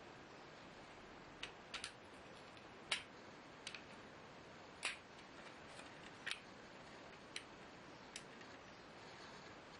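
About a dozen light, irregular clicks and taps of small hard parts or tools being handled, the loudest about three and five seconds in, over a faint steady hiss.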